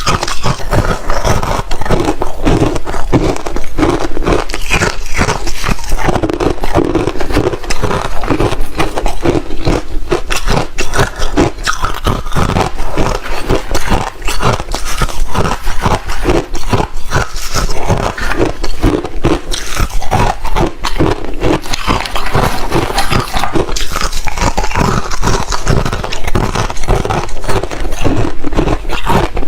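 Crunchy ice being bitten and chewed: a continuous run of loud, irregular crunches and cracks.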